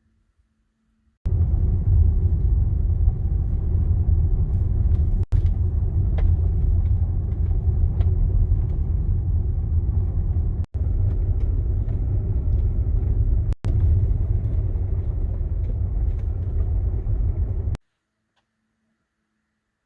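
Steady low road rumble of car tyres on a gravel road, heard from inside the car. It starts abruptly about a second in, is broken by three brief dropouts, and cuts off abruptly near the end.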